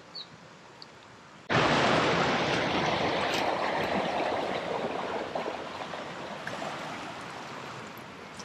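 River water rushing over shallow rapids: a steady rush that comes in suddenly about one and a half seconds in and slowly fades.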